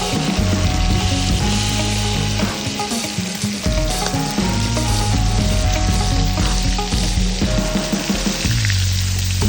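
Music playing over a steady crackling hiss.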